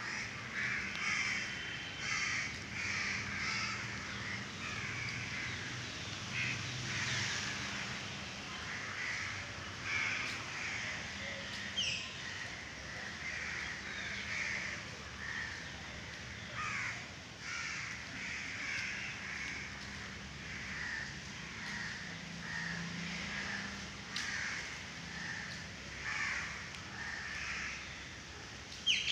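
Crows cawing over and over, short harsh calls about once a second throughout.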